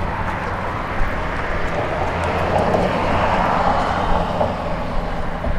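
Road traffic on a busy street: a steady rush of passing vehicles over a low engine hum, swelling as one goes by about halfway through.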